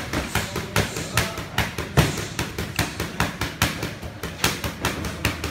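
Boxing gloves smacking focus mitts in a fast, even flurry of punches, about five hits a second, with one harder hit about two seconds in.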